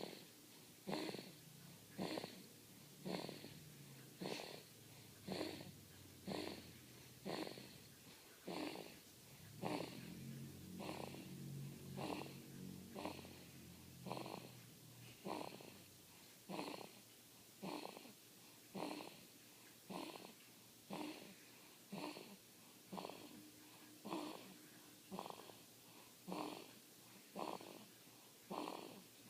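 A sleeping baby snoring in short, wheezy snorts, one breath roughly every second in a steady, regular rhythm. Midway through, a low, purring rattle carries on between the breaths for a few seconds.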